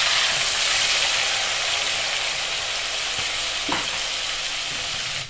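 Large turmeric-and-salt-marinated prawns sizzling in hot mustard oil in a steel kadai as a second prawn goes in. The hiss is loudest at first and eases gradually.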